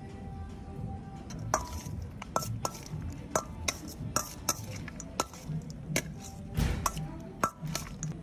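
Metal slotted spoon clinking and scraping against a stainless steel mixing bowl as diced tuna, dragon fruit and avocado are tossed in dressing: repeated irregular clinks, each with a short metallic ring, over background music.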